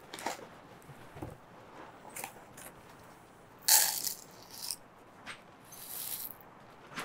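Small river-rock pebbles clicking and rattling as they are handled and poured into and out of a plastic scoop, in scattered short bursts. The loudest comes about three and a half seconds in.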